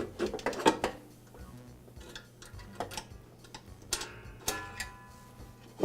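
Metal clicks and taps of a steel tension spring being hooked onto a lawn mower transmission, with a short metallic ring after one click about four and a half seconds in.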